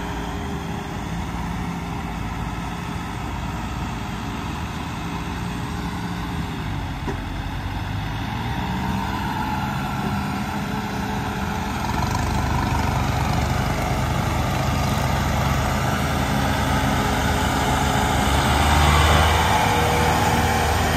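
New Holland 5620 tractor's diesel engine running under load as it pulls a loaded trolley across a field, growing steadily louder as it comes close.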